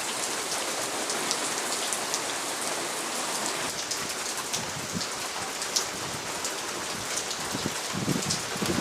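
Heavy rain falling steadily, with many separate drops ticking sharply on surfaces.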